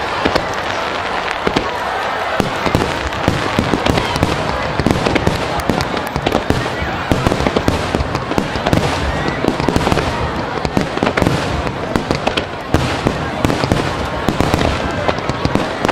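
Aerial firework shells bursting in a dense, continuous barrage: many sharp bangs and crackles coming in quick succession, overlapping one another.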